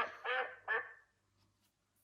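Duck quacking, three short quacks in quick succession that stop about a second in.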